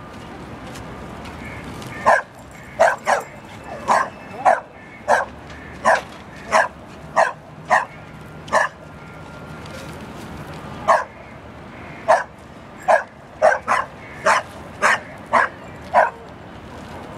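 A pit bull-type dog barking repeatedly, short sharp barks about two a second, starting about two seconds in and pausing for about two seconds midway before starting again.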